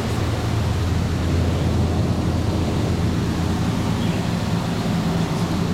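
Steady low hum and noise inside the passenger car of a Nankai 6300 series electric train.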